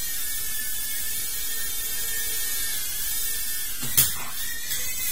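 Tiny whoop FPV quadcopter's small motors and propellers buzzing with a steady high whine in flight, then a sharp knock about four seconds in as the drone crashes into something, its whine wavering in pitch afterwards.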